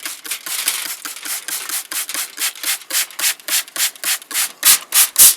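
Trigger spray bottle rapidly spritzing apple juice onto ribs: a quick, even run of short hissing squirts, about three or four a second, louder near the end.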